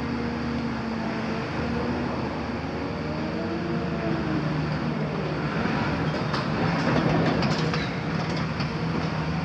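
Hydraulic demolition excavator working: its diesel engine runs steadily while the pitch sweeps up and down as the hydraulics work. From about five and a half seconds in, a run of clattering knocks of metal and rubble is heard, loudest about seven seconds in.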